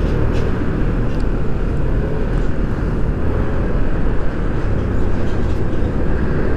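Steady wind rush and road noise from riding a Yamaha NMAX 155 scooter at road speed, strongest in the low end.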